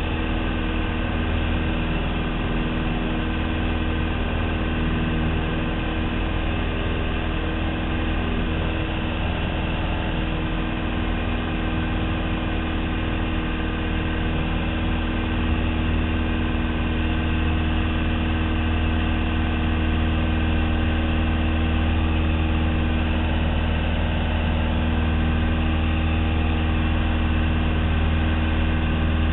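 Piper Cherokee's piston engine and propeller running steadily, a little louder from about two-thirds of the way in.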